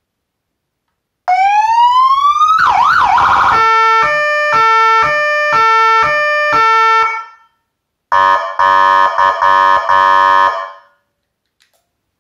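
Electronic police siren, an AS320Dig amplifier driving an ES100C speaker, stepping through its tones: a rising wail sweep, a brief fast yelp, then a two-tone hi-lo alternating about twice a second for some four seconds before stopping. After a short gap it gives a buzzing air-horn tone in several quick blasts for about three seconds.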